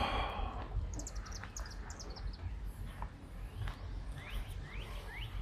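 Birds singing: a quick run of short high chirps about a second in, then a series of short rising whistled notes, about three a second, from about four seconds in. A low rumble runs underneath.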